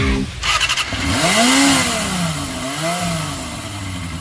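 Motorcycle engine revved twice, the pitch rising and falling each time, then settling back to a steady idle.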